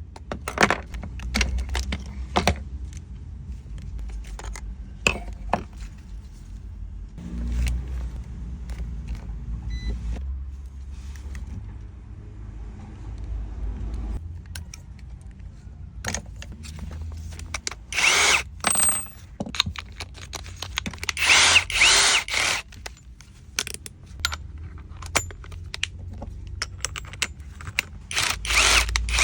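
Clicks and knocks of a cordless power tool being handled, with a small power-tool motor running in three short bursts, about two-thirds of the way through, again a few seconds later, and at the very end.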